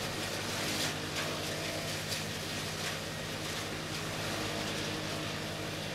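Steady low hum under a constant hiss, with a few faint soft scrapes about one to three seconds in.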